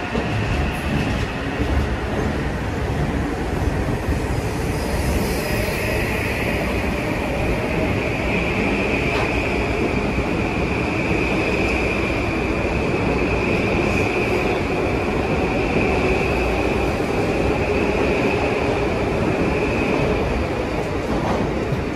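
Metro-North M8 electric multiple unit pulling out of the station and gathering speed past the platform: a steady rumble of wheels on rail, with a high whine held through most of the passage.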